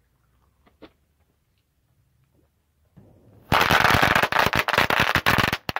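Bang snaps (throw-down poppers) going off under a slowly rolling car tyre. They fire in a dense, rapid volley of sharp cracking pops lasting about two seconds, with one last pop near the end.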